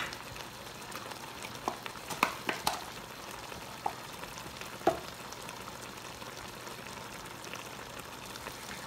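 Pot of chicken gravy sizzling steadily on the stove over high heat, with a few light clinks in the first five seconds.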